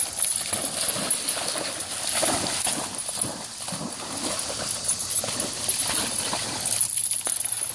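A whippet bounding through shallow water, splashing with each leap in a run of irregular strokes.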